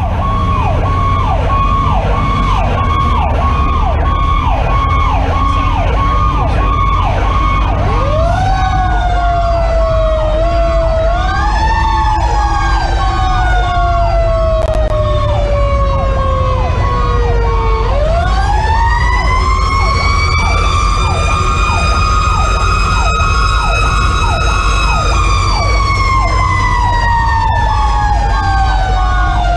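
Fire engine sirens on an emergency run. One siren sweeps down fast and repeats about twice a second. About eight seconds in, a second siren joins that winds up and down slowly, climbing highest around twenty seconds in and falling off near the end. The truck's engine and road rumble run underneath.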